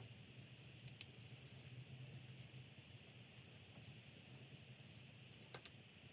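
Near silence: a faint steady hum with soft, light patting of a paintbrush dabbing fabric paint onto porous foam, and two quick sharp clicks about five and a half seconds in.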